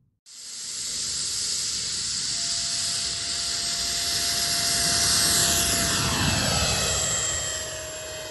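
Electric ducted fan (ceflix500+ impeller on 12S LiPos) of a 1:3.5 scale Arcus model glider on takeoff and climb-out: a jet-like whine that starts suddenly, grows louder as the model comes by, drops in pitch as it passes about six seconds in, then fades.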